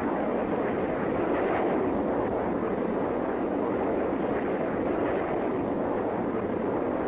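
Steady jet rumble of a B-2 Spirit bomber's four General Electric F118 turbofans in flight, an even, unbroken roar with no whine or tone standing out.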